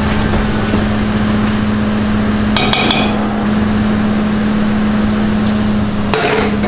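Cotton candy machine running with a steady hum, with two brief bursts of metallic clinking, about two and a half seconds in and again near the end.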